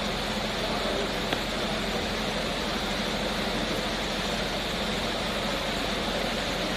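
Steady rushing of muddy floodwater pouring through a street, with a fire engine's motor idling beneath it. A single sharp click about a second in.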